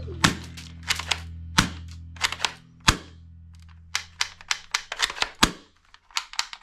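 Toy guns clicking and popping in a quick, irregular series of sharp snaps, over background music holding a low note that fades out.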